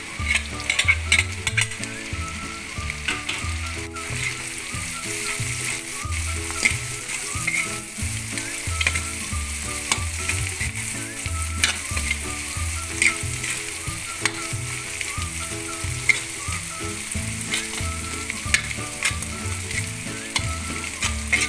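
Tinapa (smoked fish) flakes sizzling as they fry in butter with garlic and onion in a wok, with a metal spatula scraping and clicking against the pan as they are stirred.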